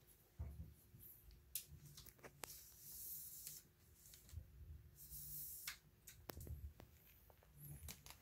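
Faint handling noises: scattered light clicks and knocks with a couple of brief rustles.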